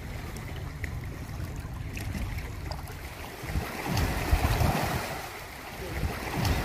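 Small sea waves washing and lapping around rocks at the shoreline, with gusts of wind buffeting the microphone; the wash swells louder about four seconds in.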